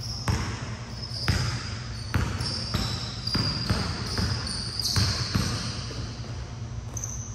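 Basketball bouncing during a pickup game, irregular sharp thuds about once or twice a second, with short high-pitched squeaks over them.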